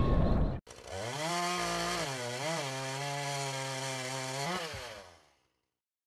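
A small engine revs up and runs steadily at high speed, dips briefly, revs up once more near the end and fades out. Before it starts, a loud noisy passage cuts off abruptly.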